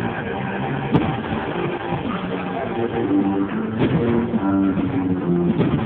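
Guitar-driven music playing steadily, with two sharp firework bangs, one about a second in and another near four seconds.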